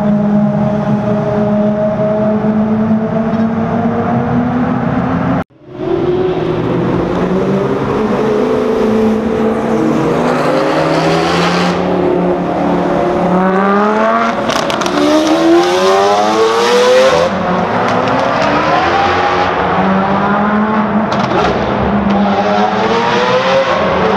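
Supercar engines in a tunnel. An engine runs at a steady pitch, a sudden cut follows, then an engine accelerates hard with its pitch rising through several gear changes and loud exhaust noise near the middle. It settles back to a steadier drone near the end.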